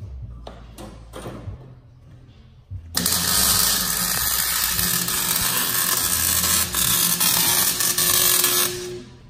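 MIG welding arc crackling and hissing steadily; it strikes about three seconds in and stops near the end.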